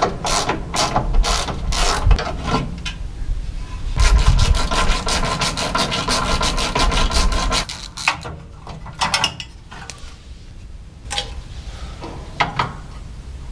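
Hand ratchet wrench clicking rapidly as a bolt on a metal bracket is turned. It goes in two runs, the longer one from about four seconds in to nearly eight seconds, followed by a few scattered clicks and knocks.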